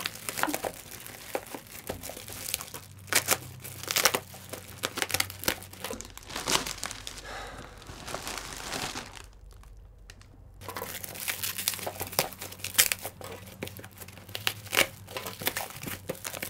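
Taped plastic parcel wrapping being torn open and crumpled by hand: continuous crinkling with many sharp rips, and a brief pause a little past halfway.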